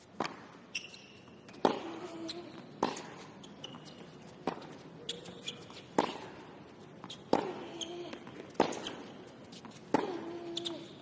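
Tennis rally on a hard court: racket strikes on the ball and ball bounces, one sharp crack roughly every second. Short grunts follow several of the hits, and shoes squeak briefly on the court.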